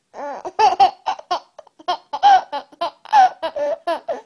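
A sleeping baby giggling: a quick run of about a dozen short laughs that starts a moment in.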